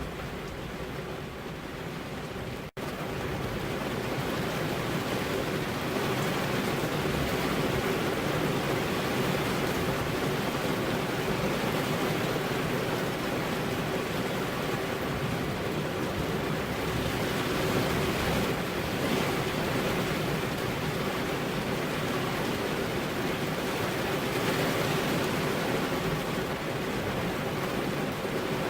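Steady rain falling, an even hiss. The sound cuts out for a split second nearly three seconds in and comes back a little louder.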